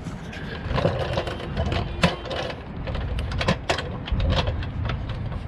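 A car jack being set under the van's rear axle and worked: irregular metal clicks and knocks over a low rumble.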